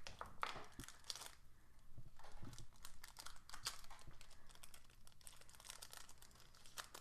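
Foil wrapper of a trading-card pack crinkling and tearing as it is opened by hand, a run of irregular quick crackles.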